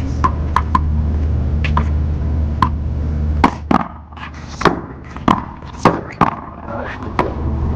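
One-wall paddleball rally: a run of about a dozen sharp smacks as paddles strike the rubber ball and it bounces off the wall and court. The hits come closer together in the second half, and a steady low rumble sits under the first half.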